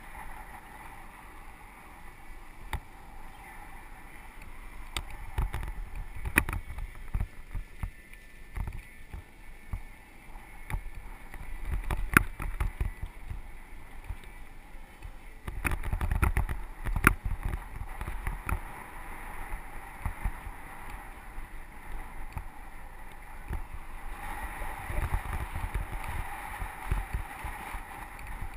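Mountain bike rolling down a dirt trail, heard through a GoPro riding on the bike or rider: a low rumble of tyres on dirt with frequent knocks and rattles from bumps, louder in stretches.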